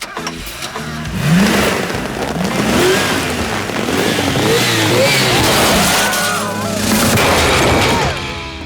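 Cartoon sound effects: a loud, steady rushing, vehicle-like noise with short rising and falling squeals and cries over it.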